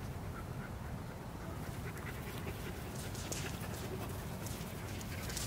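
German shepherd puppies playing: small puppy whimpers and scuffling in the grass, with short clicks and rustles from about two seconds in, over a steady low rumble.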